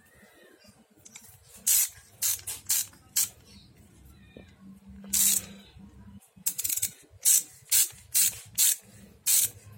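Metal parts of a socket set being fitted together and handled: a series of sharp, irregular clicks and clacks as a short extension bar is snapped on and worked, with one brief rasping scrape about halfway through.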